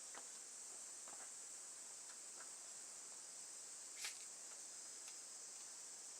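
Faint, steady, high-pitched chorus of night insects, with a few faint clicks; the clearest click comes about four seconds in.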